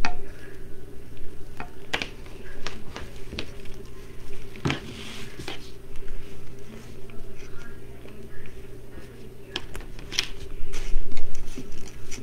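Deco mesh rustling and crinkling as a weaving needle is worked down through it, with scattered small clicks and taps of handling, over a steady low hum.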